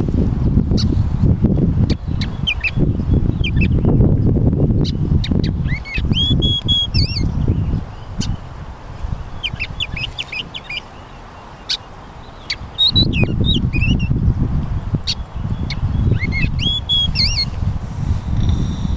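Small birds singing, repeating short high chirping phrases about every three or four seconds. A loud, uneven low rumble comes and goes beneath them, dropping out for a few seconds midway.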